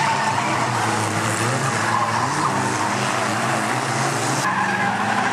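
Several small micro banger-racing cars' engines revving hard together on a loose shale oval, their pitches rising and falling as they race.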